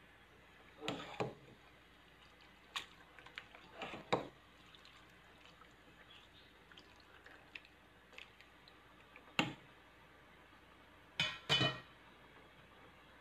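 A metal ladle stirring beef innards in water in a stainless steel pot, with scattered clinks and knocks against the pot a few seconds apart; a pair near the end ring briefly.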